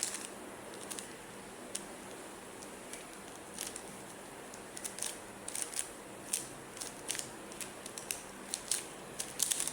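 Rubik's cube being twisted by hand: short plastic clicks of its layers turning, a few scattered at first, then in quicker runs through the second half.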